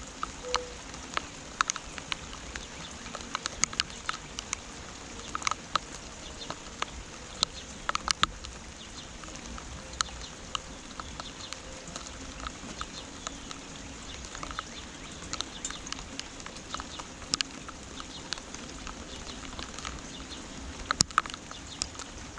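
Steady rain hiss with irregular drops pattering close by, a few of them sharp and loud. A bird calls faintly now and then.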